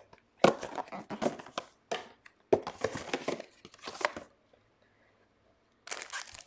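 Crinkling and rustling of trading cards and their pack wrappers being handled, in quick scraping strokes that stop for about a second and a half near the end and then start again.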